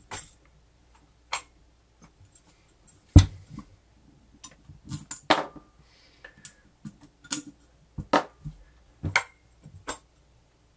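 Irregular clicks and knocks of small metal parts and screws being handled while long screws are lined up through the motor housing of a Hamilton Beach Model 30 milkshake mixer, with one louder knock about three seconds in.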